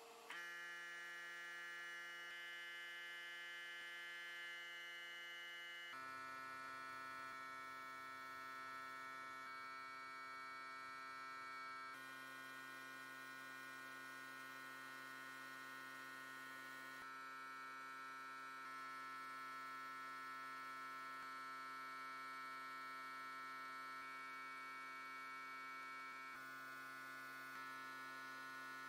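Faint, steady electrical hum from powder-coating equipment, a stack of fixed tones with no rhythm. Its pitch mix changes abruptly several times and it cuts off sharply at the end.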